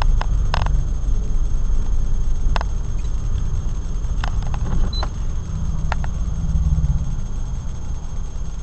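Low, steady engine and road rumble of a car creeping through heavy traffic, heard from inside the cabin, with a few scattered sharp clicks or rattles.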